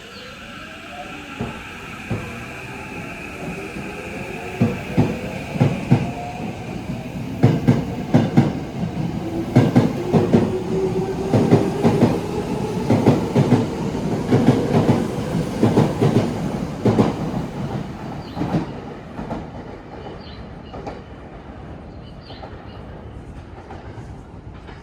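Tokyo Metro 8000-series electric train heard from inside the car as it accelerates: the traction motor whine climbs steadily in pitch for several seconds. Then the wheels clack rapidly over rail joints for about ten seconds, and the run grows quieter and duller near the end.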